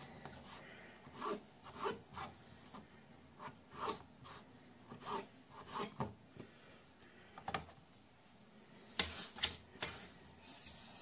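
Kitchen knife cutting raw potato slices into chip sticks on a plastic cutting board, with irregular short chops about every half second. Near the end the cut sticks are scraped off the board into a pot of water.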